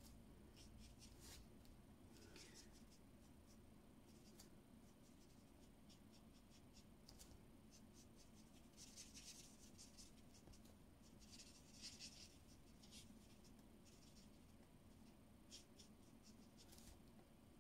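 Faint scratching of a Stampin' Blends alcohol marker's nib on cardstock: short colouring strokes, with a couple of louder stretches about nine and twelve seconds in.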